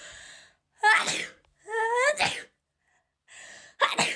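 A person sneezing three times in quick succession, with a sharp breath in before each sneeze; the breath before the second one rises into a pitched 'ah'.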